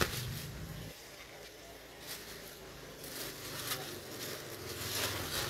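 Fish being handled in a styrofoam fish box, giving a few short scrapes and clicks, over a low rumble that fades about a second in and returns near the end.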